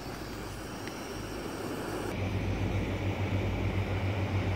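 Burner of a windproof gas camping stove running under a pot. About two seconds in, a small motorboat's engine takes over with a low, steady, slightly pulsing drone.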